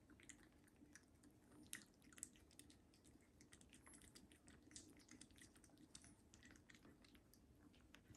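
A cat licking a lickable purée treat from a squeeze tube: faint, quick, wet tongue clicks, with a couple of louder smacks about two seconds in.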